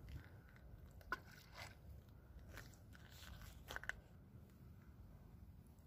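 Near silence with a few faint clicks, one sharper about a second in and a small cluster near the four-second mark.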